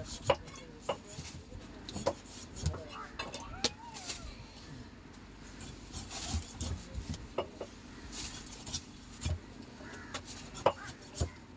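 Large knife chopping a small shark on a wooden cutting board: a series of irregular sharp knocks as the blade strikes through to the board, about one every second or so.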